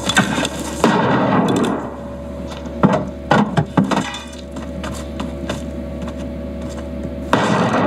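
Soundtrack of a western film's gunfight. There is a burst of noise about a second in, then several sharp gunshot cracks and splintering wood around three to four seconds in. A quieter stretch with a low steady hum follows, and a loud rush of noise comes near the end.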